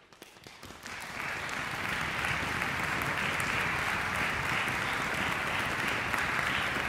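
A small concert audience applauding: a few scattered claps swell within about a second into steady clapping.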